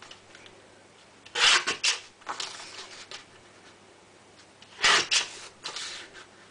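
Sliding paper trimmer's cutting head drawn along its rail through a sheet of backing paper, with paper shifting on the bed. Short rasping strokes come in two groups, about a second and a half in and again about five seconds in.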